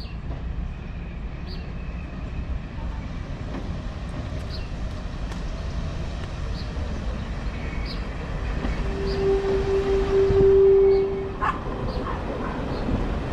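First-generation diesel multiple unit pulling into the station and running past along the platform, its underfloor diesel engines and wheels making a steady low rumble that slowly builds as it nears. About nine seconds in, a loud steady tone sounds for about two seconds.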